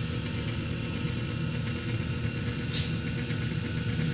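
Electric gear-drive mixer agitator running steadily, its motor and gearbox giving a steady hum while it stirs liquid in a plastic drum. A short hiss about three seconds in.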